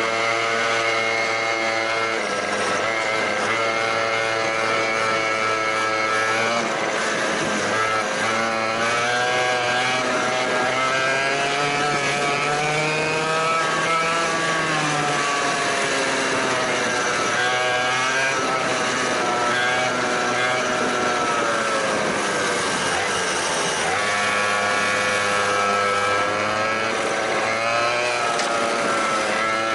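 100cc two-stroke racing kart engine heard onboard at speed, its pitch climbing as the kart accelerates and falling as it slows for corners. It holds a high steady note at the start, dips about seven seconds in, climbs again until about fourteen seconds, wavers through the middle, and rises back to a steady high note near the end.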